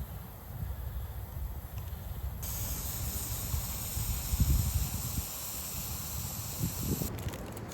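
A steady hiss from the burning toolbox wood stove and the coffee water heating on it, starting about two seconds in and cutting off abruptly near the end, over a low rumble of wind on the microphone.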